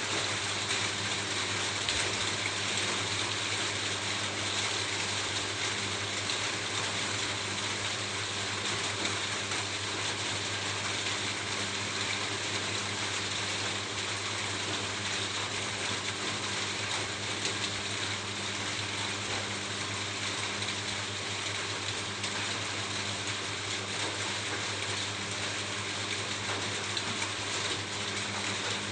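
Steady rain pattering on a roof, a dense, even hiss of many small drop ticks with no let-up.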